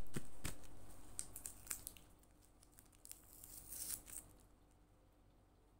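Clear-tape-covered paper cutouts crinkling and crackling as fingers handle and press them, in a run of crackles over the first two seconds and another around four seconds in.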